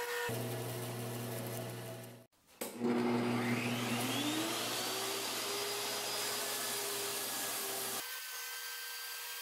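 Bandsaw running as it finishes cutting through two stacked maple boards. After a break, a table saw's motor starts, its whine rising as it comes up to speed, and then runs steadily.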